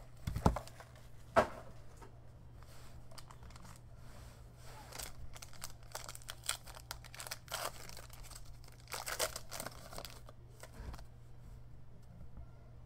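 Foil trading-card pack being torn open and crinkled, with scattered crackly rustles as the wrapper is pulled apart. Two sharp knocks about a second apart near the start are the loudest sounds.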